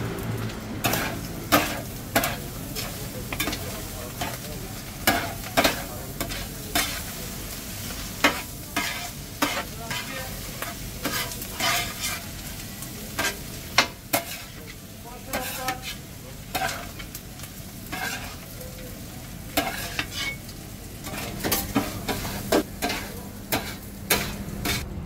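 Metal spatula scraping and clacking against a steel griddle tray in many sharp, irregular strikes, about one or two a second, while chopped kokoreç with diced tomatoes sizzles steadily in the tray.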